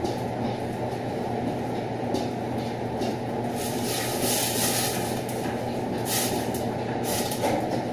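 Steady drone of a commercial kitchen extractor hood fan with a low hum. A spoon stirs in a steel pot, adding brief clinks and scrapes a few seconds in and again near the end.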